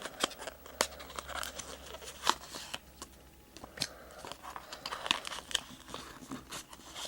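A trading-card rip card being torn open by hand: irregular crackling, snapping and tearing of the card stock and its wrapper, with many short sharp crackles.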